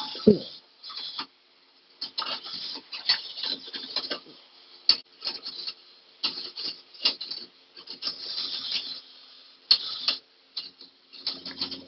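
Irregular bursts of metal scraping and rubbing with sharp clicks, from a hot steel track pin being handled and worked with pliers.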